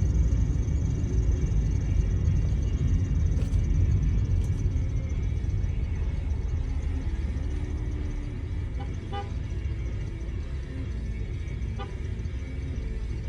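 Steady low rumble of a car's engine and road noise heard from inside the cabin, easing slightly over the stretch, with two faint brief ticks late on.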